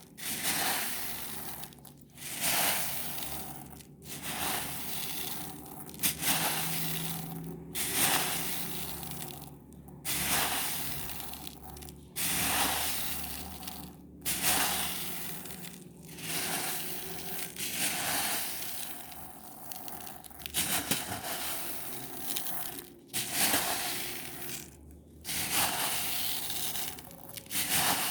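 Mini silver pearl beads being handled, in repeated bursts of hissy rattling that start sharply and fade, about one to two seconds apart.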